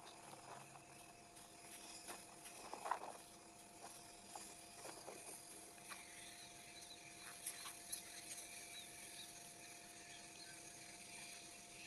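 Near silence: faint outdoor ambience with a steady faint hum and a few soft knocks, the clearest about three seconds in.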